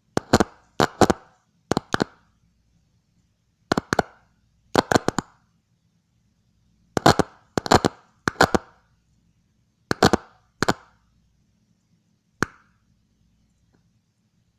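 Two screwdrivers wired as a makeshift switch being touched together and parted, keyed like a Morse key: sharp clicks, mostly in quick pairs, irregularly spaced, stopping about two seconds before the end.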